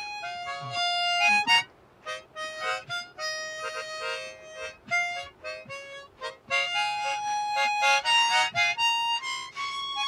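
An old Hohner chromatic harmonica playing a slow melody of single held notes, with a short break about two seconds in. One or two of its reeds play flat.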